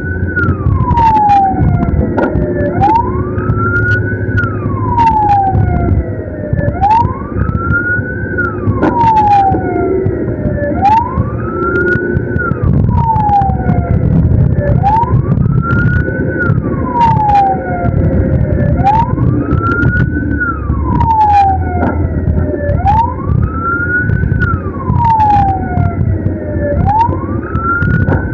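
Ambulance siren on a slow wail, each cycle rising quickly and falling slowly, about once every four seconds, over a dense rumble of engine and road noise. Scattered sharp clicks sound throughout.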